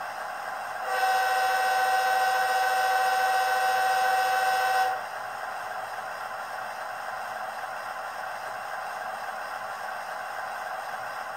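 HO-scale Bachmann diesel locomotive's DCC sound decoder, through its small onboard speaker, playing a diesel engine idling steadily. About a second in, one long horn blast of about four seconds sounds over the idle, then stops sharply.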